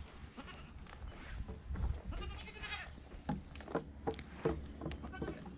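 Nigerian dwarf goats bleating: one long wavering bleat about two seconds in, then several short calls, with knocks of hooves on a wooden plank.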